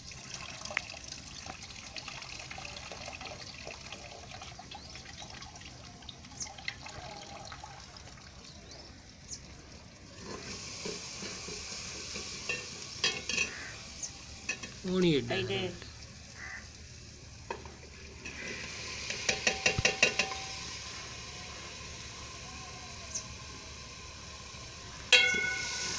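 Tarka frying and sizzling in a metal pot over a wood fire, with a metal ladle stirring and scraping the pot. The sizzle grows about ten seconds in, there is a quick rattle of scrapes around twenty seconds, and the ladle clinks against the pot near the end.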